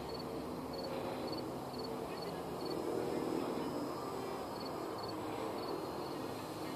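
Open-field ambience: a steady low rumble with insects chirping in short, regular pulses about twice a second.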